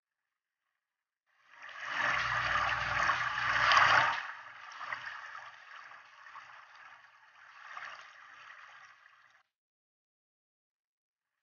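Water from a garden hose splashing onto a wet shih tzu and into a metal basin. It starts about a second and a half in, is loudest for the next two seconds, then runs weaker and uneven and stops abruptly.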